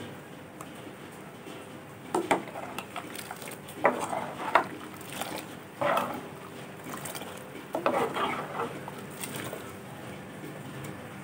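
Metal ladle stirring coconut milk sauce in an aluminium pot, knocking and scraping against the pot's sides several times.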